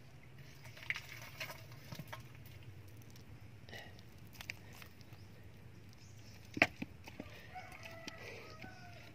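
Scattered knocks and splashes from a hand grabbing thrashing fish in a buried clay jar with a little water in it, the loudest knock about two-thirds through. A rooster crows near the end.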